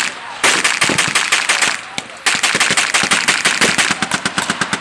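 Machine guns firing blanks in long rapid bursts, with a short break about two seconds in. In the second burst the single rounds can be heard apart.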